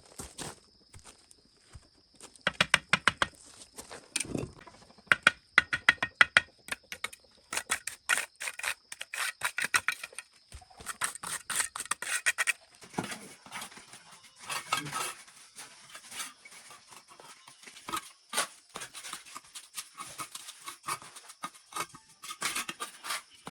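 Quick runs of sharp clicking and scraping, like something being cut or worked by hand, over a thin steady high insect drone.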